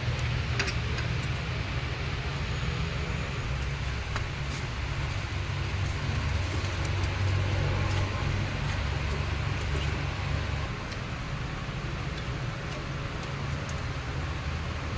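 2006 Nissan pickup's engine cranking over on the starter motor without firing, a sign of no spark at the plugs. The cranking eases off a little about ten seconds in.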